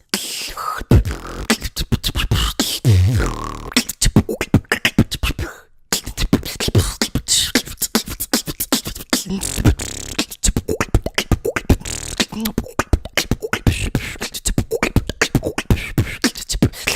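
Fast human beatboxing: dense mouth-made kick, snare and hi-hat sounds with low bass notes, pausing briefly about six seconds in before carrying on.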